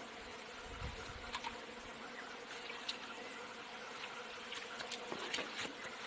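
Steady, faint buzzing of many flies swarming at a carcass, with a few faint scattered clicks.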